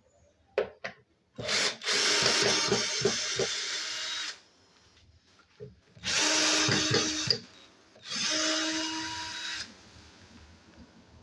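Power drill running in three bursts of a couple of seconds each, backing out the screws that hold a woofer in its enclosure, with a few short clicks before the first run.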